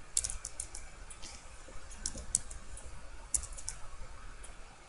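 Typing on a computer keyboard: irregular keystroke clicks in short clusters, with pauses between them.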